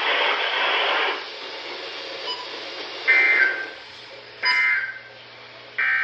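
NOAA Weather Radio receiver sounding the three short EAS end-of-message data bursts, buzzy two-tone digital chirps about a second and a half apart, after about a second of loud broadcast audio with hiss.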